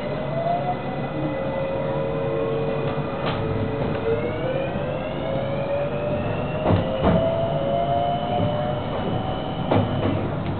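JR West 223 series 6000 electric train pulling away, its Hitachi inverter motor drive giving a whine whose pitch rises steadily as the train gathers speed over a steady running rumble. About four sharp clacks come as the wheels cross rail joints and points.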